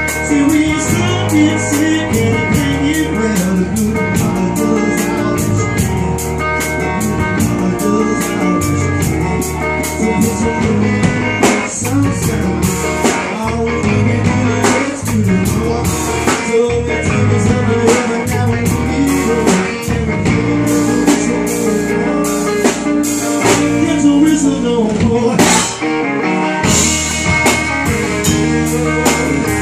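Live blues-rock band playing: a resonator guitar over a drum kit keeping a steady beat.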